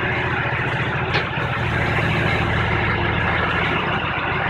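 John Deere 310E backhoe loader's diesel engine running steadily at idle, close by.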